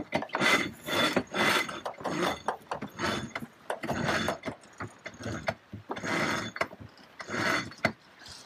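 Sailboat winch ratcheting and rope running through blocks as the crew haul lines for the spinnaker, in repeated pulls about one a second.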